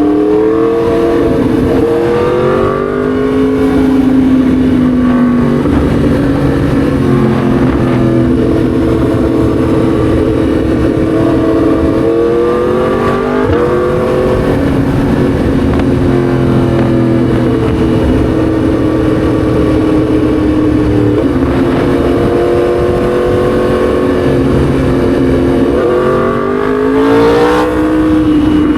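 Yamaha MT-10 SP's crossplane inline-four engine under way, mostly holding a steady note, rising with throttle about 13 s in and near the end, and stepping down in pitch at gear changes about 3 s and 21 s in.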